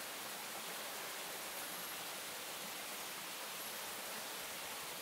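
Low steady hiss with no bee buzz or other distinct sound in it, and a very faint short high tone about every two seconds.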